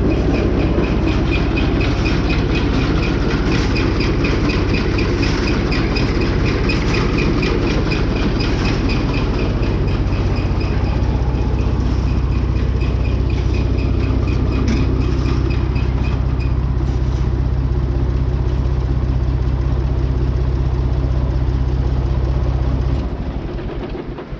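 Tractor at low idle driving an International 990 mower-conditioner through its PTO: a steady engine hum with fast, even metallic ticking from the mower's drive. About 23 seconds in, the engine is shut off and the sound dies away.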